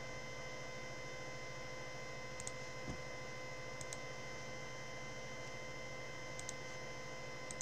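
Steady electrical hum, with a few faint computer mouse clicks and one soft thump about three seconds in.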